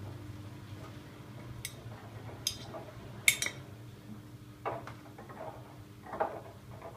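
Siemens iQ700 front-loading washing machine tumbling its drum during a Rapid 20 wash: a steady motor hum with a few sharp metallic clinks and softer knocks as the load turns, the loudest clink about three seconds in.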